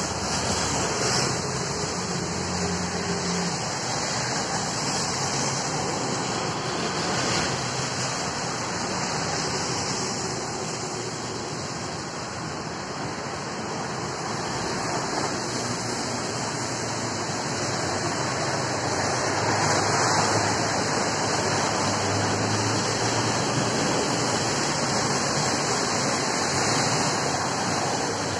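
Steady rain falling, an even hiss that holds at the same level throughout.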